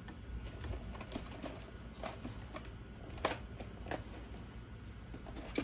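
Scattered light clicks and rattles of small screws and parts being handled, with a few sharper ticks.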